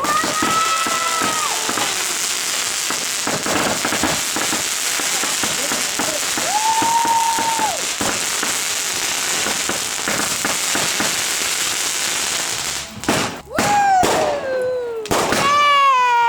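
A fireworks barrage going off in a dense, continuous run of crackles and bangs. Long held whistling tones rise above it a few times, and near the end several tones fall in pitch.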